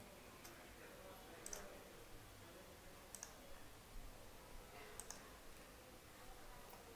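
Faint computer mouse clicks, about three of them a second or two apart, over near-silent room tone.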